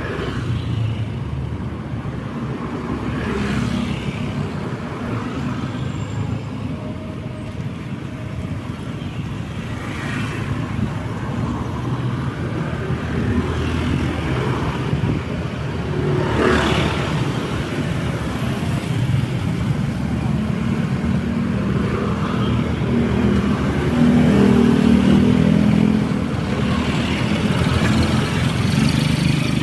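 Road traffic: a continuous rumble of motor vehicle engines and tyres. About halfway through, one vehicle passes close by, and the traffic swells louder near the end.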